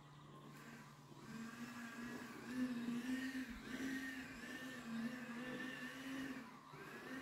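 A motor running with a steady, slightly wavering hum that comes in about a second in.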